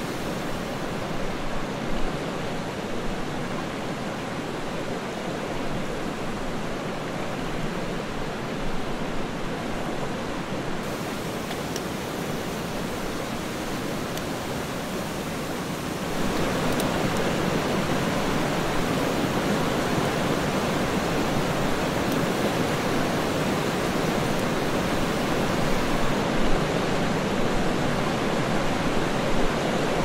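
Steady rushing of a jungle stream running over rocks, louder from about halfway through, with a few faint clicks.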